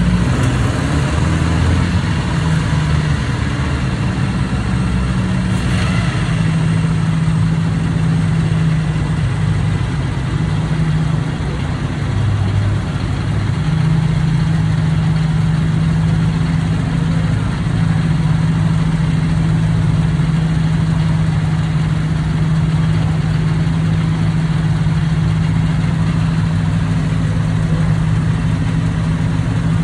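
Engine of a vintage open two-seater car idling steadily.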